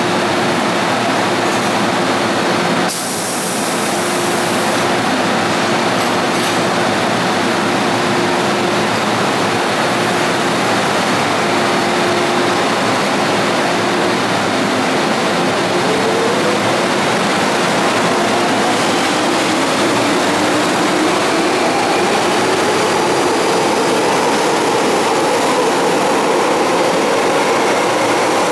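MTR M-Train electric multiple unit pulling away from an underground platform. A steady hum while it stands gives way, about fifteen seconds in, to a whine that climbs steadily in pitch as the train accelerates, over constant wheel and rail noise. A brief hiss sounds about three seconds in.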